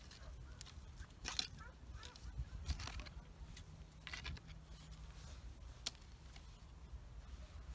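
Scattered scrapes and crunches of soil being worked and pushed back around the base of young grapevine rootstocks, with one sharp click about six seconds in.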